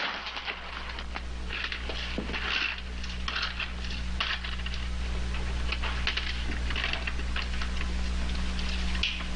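Loose coins clinking and scraping as they are gathered up by hand off a hard floor, many small chinks at uneven intervals, over a steady low hum.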